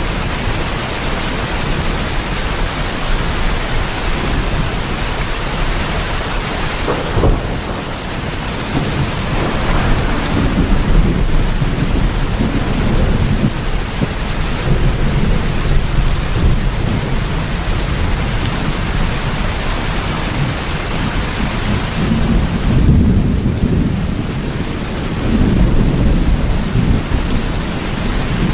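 Steady heavy rain, with a low rumble swelling up twice, about ten seconds in and again near the end.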